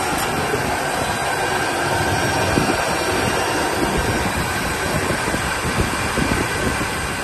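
Brush-making machine running: a steady mechanical hum and hiss.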